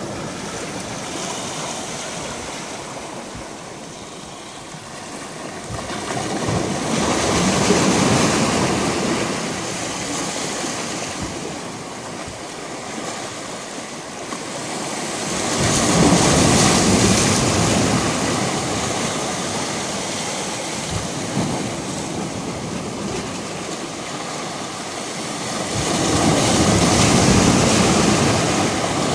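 Sea waves washing against shoreline rocks: a steady rush of surf that swells up three times, roughly every ten seconds.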